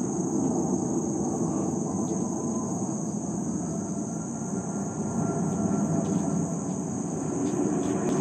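Distant jet engine rumble from an Airbus A380 rolling out on the runway after landing, over a steady high-pitched buzz of insects.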